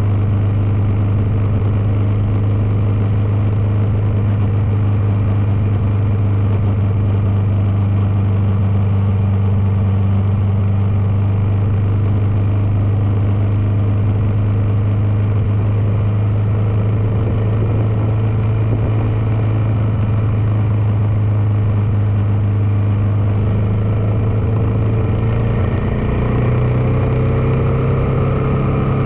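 Kawasaki KLR650's single-cylinder engine cruising with a steady drone. Near the end its pitch rises as the bike speeds up.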